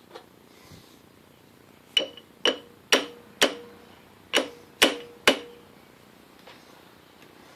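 Seven sharp metal-on-metal taps, four then a short pause then three, each ringing briefly: the old gear being tapped in the lathe chuck to bring it on center.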